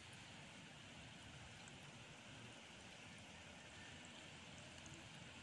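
Near silence: faint, steady outdoor background noise at the shore, an even hiss with a light low rumble.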